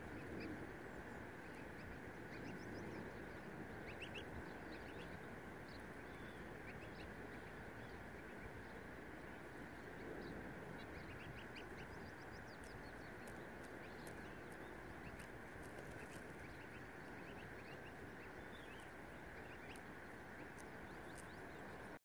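Waterfowl calling faintly over a steady background hiss, with short high chirps scattered throughout.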